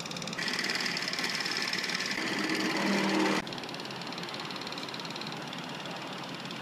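Steady, rapid clatter of a film projector, the simulated projector sound of a Super 8 film-look app, running throughout. Beneath it the background sound changes abruptly with the shots: a louder stretch starts about half a second in and cuts off suddenly after about three and a half seconds.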